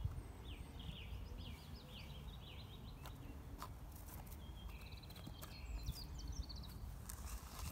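A small songbird singing two phrases of quick, high, repeated falling notes, the second ending in a trill, over a steady low rumble with a few faint clicks.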